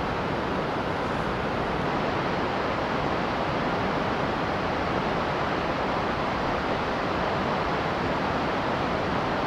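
Whitewater rapids of a fast mountain river rushing over boulders: a steady, unbroken rush of water noise.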